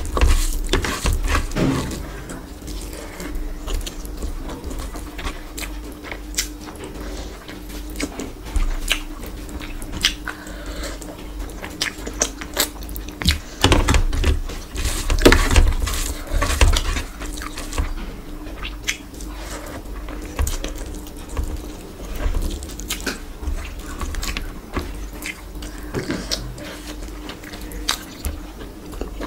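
Close-miked eating sounds: fingers squeezing and mixing rice with curry gravy on a tray, with wet clicks, chewing and lip smacks. A faint steady hum runs underneath.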